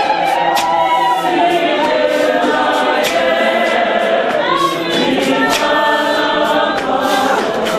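Many voices of a church congregation singing a worship song in isiZulu, a cappella and in harmony, with sharp rhythmic beats keeping time under the singing.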